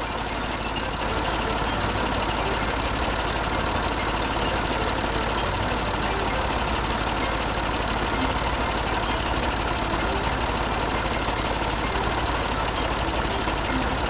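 Tractor engine running steadily as the tractor is driven along.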